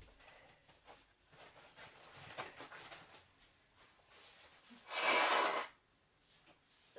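A person blowing their nose once: a loud rush of air lasting under a second, about five seconds in, after a few softer snuffly noises.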